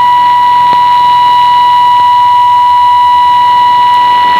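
A steady single-pitch test tone, the −12 dBFS step of a shortwave test transmission, received off air by radio with a light hiss of static behind it.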